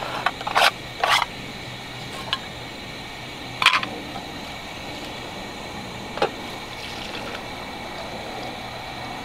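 A few sharp metal clinks and knocks as a blue water jug is handled and opened, then water pouring from the jug into a coffee pot of grounds near the end.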